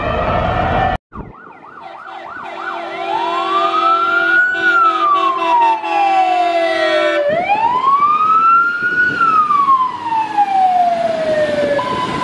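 Fire engine siren on an emergency run. A brief burst of quick yelps gives way to a slow wail that rises and falls twice, and it switches to a two-tone hi-lo at the very end.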